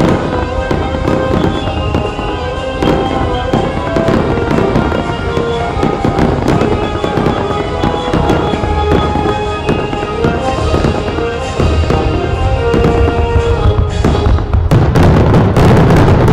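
Aerial fireworks shells bursting overhead in a string of sharp bangs and crackles over music. The bursts come much thicker and louder near the end.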